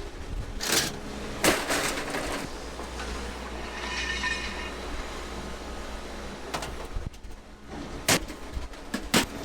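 A vehicle engine running steadily with a low rumble, under a scattering of sharp knocks and clanks, with a faint high ringing tone about four seconds in.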